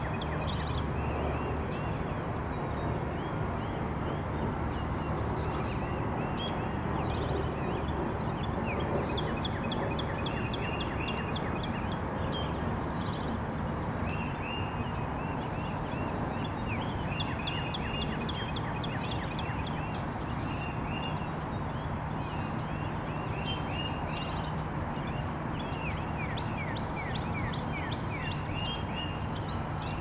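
Spring dawn chorus of songbirds: many short high chirps and trills from several birds throughout, over a steady rumble of distant early-morning city traffic.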